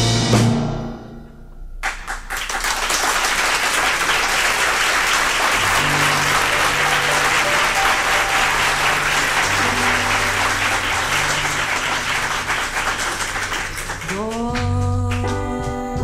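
A song ends, then an audience applauds for about twelve seconds while low held notes play underneath; near the end the music starts up again.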